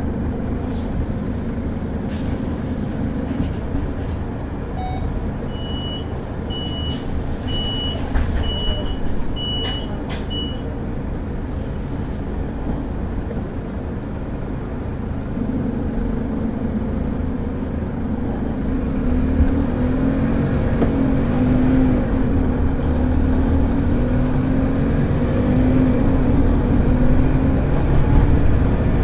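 Scania DC9 nine-litre five-cylinder diesel of a Scania K280UD double-decker bus heard from inside the cabin, running under load with road noise. About halfway through it pulls harder and grows louder, its note climbing steadily as the bus accelerates. A few seconds in, a run of about five short high beeps, roughly one a second.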